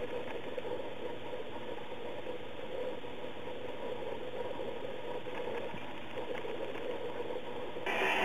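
Steady rushing background noise with a faint hum, getting louder near the end.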